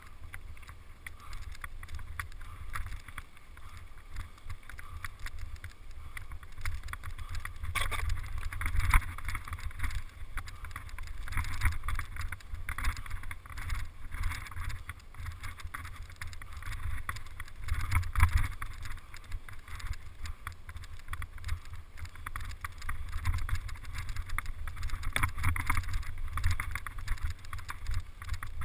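Wind buffeting the microphone of a camera riding on a mountain bike as it descends a rough dirt trail, with a steady rumble and many small knocks and rattles as the bike goes over bumps.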